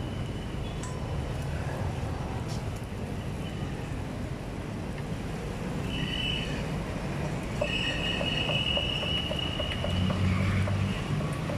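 Street ambience with a steady low rumble of traffic, and a high-pitched squeal briefly about six seconds in and again, longer, from about eight seconds to near the end.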